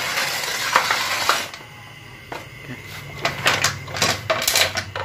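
Small metal parts of an automatic transmission being handled: a rustling scrape for the first second and a half, then a run of sharp metallic clinks and taps, thickest in the second half.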